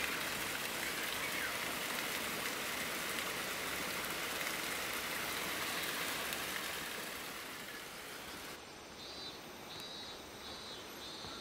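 Steady rush of flowing river water, an even hiss. After a cut near the end it gives way to a quieter ambience with a faint, high, pulsing call repeating a few times.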